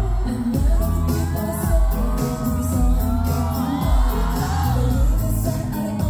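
Live K-pop performance: a female singer sings the melody into a handheld microphone over a pop backing track with a steady bass beat, amplified through a concert sound system. The voice comes in about half a second in, after an instrumental bar.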